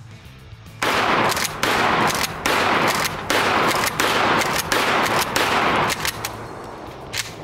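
A 12-gauge Mossberg 88 pump-action shotgun firing a series of shots in quick succession, about six, each blast starting sharply and staying loud until the next, then dying away near the end.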